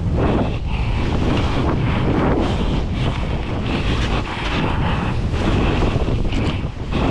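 Wind buffeting the microphone of a skier moving downhill, mixed with the hiss of skis through powder snow. The noise is loud and continuous, dipping briefly a few times.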